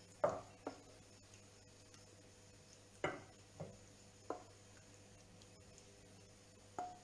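A wooden spoon knocking and scraping against a frying pan as gnocchi are pushed out onto a plate: about six short, spaced-out knocks, the loudest near the start and about three seconds in.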